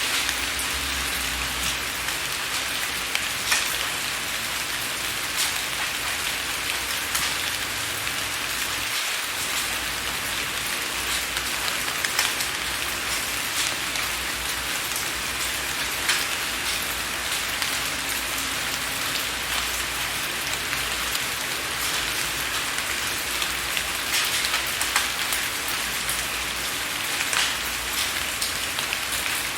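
Steady rain, with individual drops ticking against window glass here and there.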